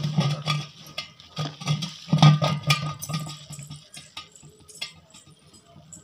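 Hands rubbing and squeezing plastic toy animals in soapy water and foam: irregular wet squelches and clicks, thinning out after about four seconds.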